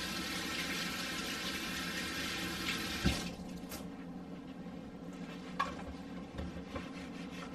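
Kitchen faucet running as gloved hands are rinsed under it, then turned off with a knock about three seconds in. A few light clicks follow.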